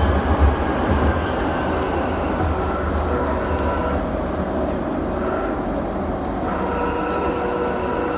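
London Underground Jubilee line train (1996 Tube Stock) running through a tunnel, heard from inside the carriage: a steady deep rumble of wheels on rail with noisy running. Several steady whining tones from the motors become clearer about six and a half seconds in.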